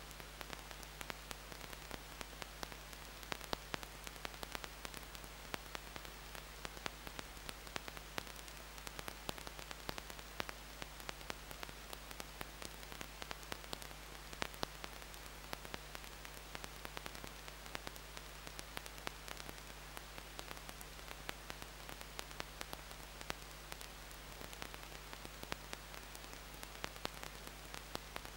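Steady electrical static hiss with a low mains hum and a scatter of crackling clicks: the noise floor of an analogue camera recording, with no bird calls heard above it.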